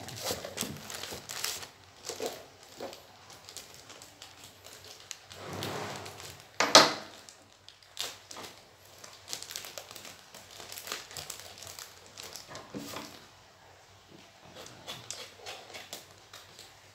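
Thin plastic courier mailer bag crinkling and rustling as it is handled and torn open by hand, with irregular crackles throughout and one loud, sharp crackle about seven seconds in.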